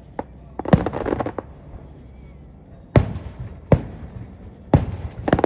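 Fireworks going off: a small pop, then a sharp bang followed by about half a second of crackling, then four more bangs spread over the last two and a half seconds.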